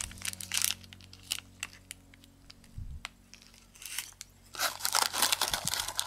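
Foil snack wrapper crinkling as it is peeled open by hand. Scattered crackles at first, then dense, continuous crinkling from a little past halfway.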